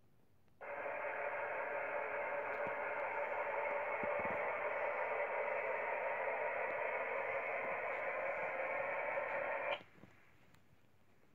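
Radio static: a steady, thin hiss that switches on abruptly just under a second in and cuts off sharply about nine seconds later.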